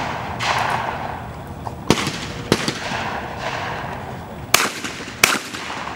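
28-gauge over-under shotguns firing at skeet doubles: four sharp shots in two pairs, each pair well under a second apart, the first pair about two seconds in and the second near the end.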